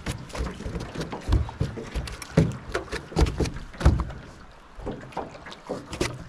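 Irregular knocks and bumps in a small boat, with water and handling noise between them, as a freshly hooked fish is brought in and unhooked. The knocks come unevenly, about six strong ones, with a quieter stretch a little after the middle.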